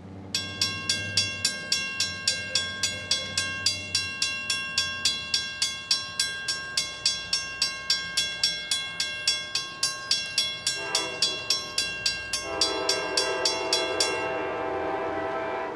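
Railroad grade-crossing bell ringing in steady strokes, about three a second, while the crossing gates lower. From about eleven seconds in, an Amtrak P40 locomotive's horn sounds for the crossing, turning into a louder, longer blast a second and a half later. The bell stops shortly before the end.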